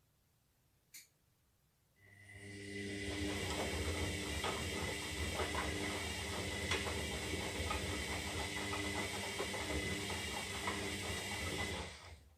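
Zanussi Lindo 300 washing machine turning its drum during the wash: a single click, then the motor starts and runs steadily for about ten seconds with a whine, a hiss and small clicks and clatters from the tumbling drum, and stops near the end.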